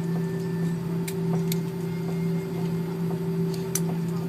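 Steady drone inside an Airbus A340-300 cabin on the ground before takeoff, a low hum of a few fixed tones over a light hiss, with a few scattered light clicks.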